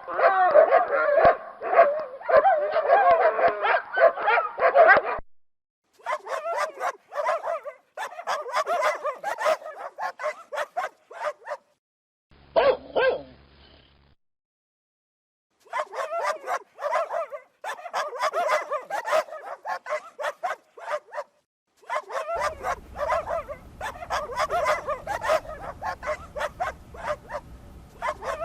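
Dogs barking rapidly and repeatedly in several separate recordings, with brief silences between them.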